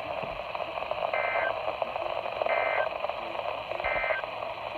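Three short, identical two-tone data bursts about a second and a half apart over steady radio hiss. This is the EAS/SAME end-of-message code that closes a NOAA Weather Radio alert.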